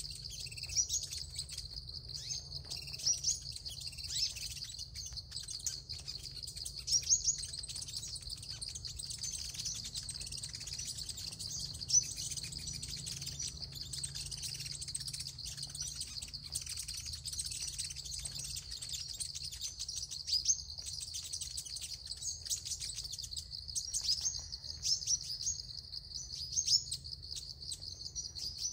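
Sunbirds chirping: many short, high, thin notes in quick flurries, over a steady high-pitched insect drone.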